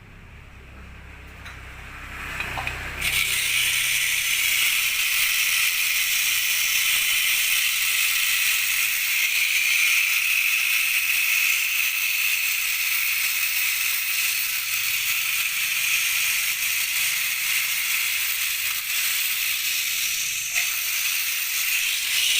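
A loud, steady hiss that starts suddenly about three seconds in, after a low rumble dies away.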